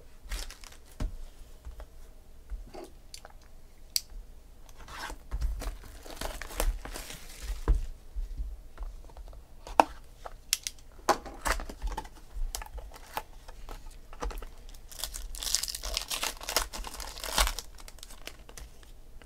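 Wrapping crinkling and tearing as a 2008 SPX Baseball box of trading cards is opened and its foil packs are handled. The crinkling comes in two longer bouts, with scattered sharp clicks and taps between them.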